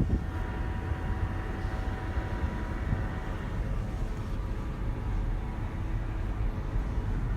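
B8-generation Audi A4 running, a steady low rumble with a faint high whine held on one pitch throughout.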